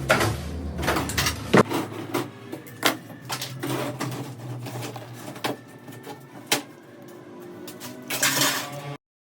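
Irregular metallic clinks and knocks of metal parts being handled, over a low steady machine hum; the sound cuts off suddenly near the end.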